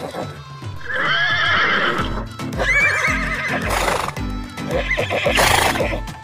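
Horses neighing several times: wavering whinnies about one and three seconds in, and harsher cries around four and five and a half seconds. Background music with a steady bass beat plays underneath and grows stronger about two seconds in.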